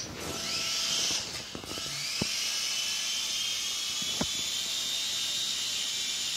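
Syma X1 toy quadcopter's small electric motors and propellers whining at a high pitch. They spin up, dip briefly after about a second, then spin up again and hold steady. Two light knocks come about two and four seconds in.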